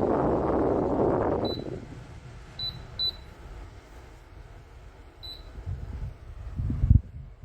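Short, high electronic beeps from a smart fan's control panel, four of them spread over a few seconds, after a steady rush of air noise drops away about a second and a half in. A low thump comes near the end.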